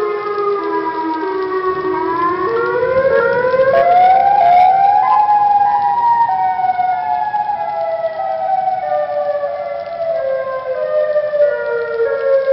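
Outdoor tornado warning siren wailing with several tones sounding together. The pitch dips slightly, climbs over about three seconds starting about two seconds in, then falls slowly.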